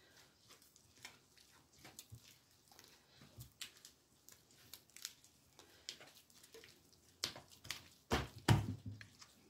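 A hand kneading soft, sticky yeast dough: irregular wet squelching and tearing as the dough is pulled and pressed, growing louder near the end with a few heavier slaps.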